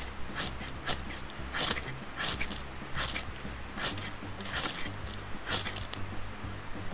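The sharp 90-degree spine of a Mora Bushcraft Black knife scraped repeatedly down a ferrocerium rod to throw sparks: a quick run of short scraping strokes, roughly two a second.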